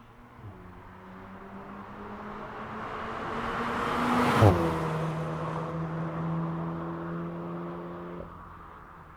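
VW Golf GTI driving past: its engine note grows louder as it approaches, drops in pitch as it passes about halfway through, then fades away, with the engine tone cutting off suddenly near the end.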